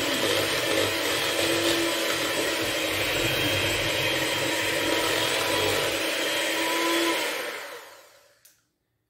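Electric hand mixer running on high, its beaters whipping boiled potatoes in a bowl, then winding down and stopping about eight seconds in.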